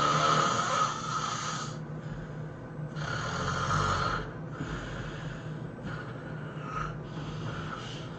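A man snoring loudly in deep sleep. Two long, loud snores come in the first half, then shorter, softer ones.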